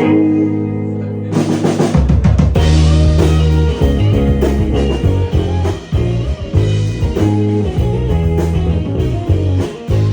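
Live rock band starting a song on the count-in: a held chord rings first, the drum kit comes in after about a second, then the bass joins and the full band plays a driving beat.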